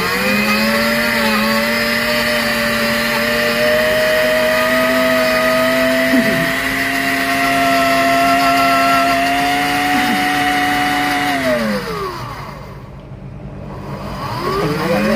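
Countertop high-speed blender motor running, blending chopped apple into juice: a steady whine that climbs slightly in pitch, winds down about twelve seconds in, and starts up again just before the end.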